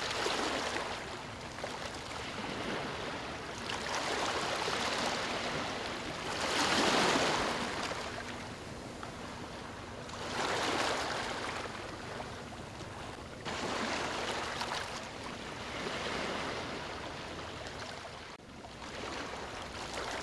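Ocean waves breaking on a beach and washing up the sand, rising and falling in surges every few seconds, the loudest about seven seconds in.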